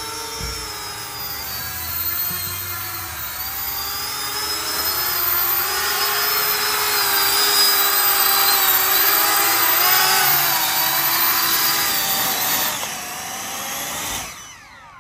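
Four 70 mm electric ducted fans on a 3D-printed drone whining at high speed, their pitch wavering up and down with the throttle. Loudest midway, they drop back near the end and spin down with a falling whine as the drone sets down.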